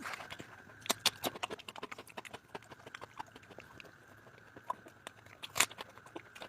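Close-miked mouth sounds of eating: irregular wet smacks and clicks while chewing, with a sharper smack about a second in and another near the end.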